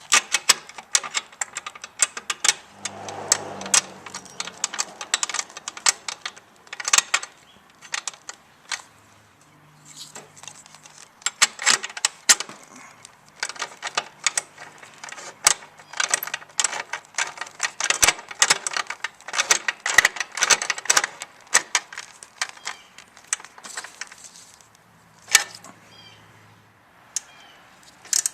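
Hand tools and small metal parts clicking and clinking in dense, irregular runs while a motorcycle handlebar is reassembled, with a brief low hum twice.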